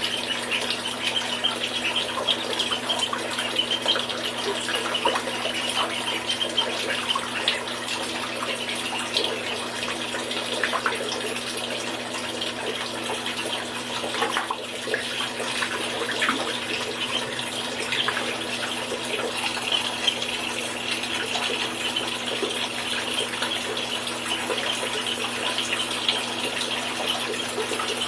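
Water running steadily from a tap into a bathtub, a continuous splashing hiss.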